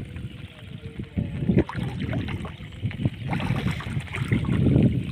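Shallow floodwater splashing and sloshing irregularly, with short knocks, as a fishing net full of live fish is handled in it.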